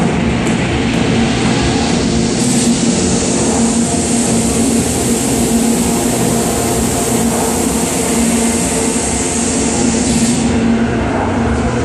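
Minimal techno played loud over a club sound system, in a breakdown: a low held drone carries on while the sharp ticking of the beat stops and a white-noise sweep swells in about two seconds in, stays up and falls away near the end.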